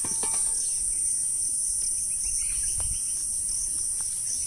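Steady high-pitched insect chorus, with a few faint clicks and knocks.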